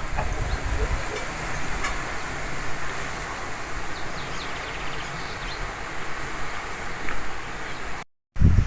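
Strong wind blowing, a steady rushing noise with a heavier low rumble of gusting in the first second. A few faint high chirps sound around the middle.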